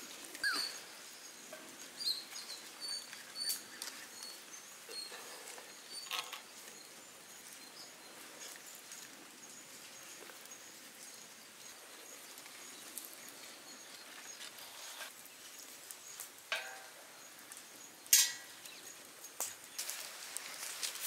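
Quiet outdoor ambience with scattered high bird chirps and a few sharp knocks, the loudest about three seconds before the end.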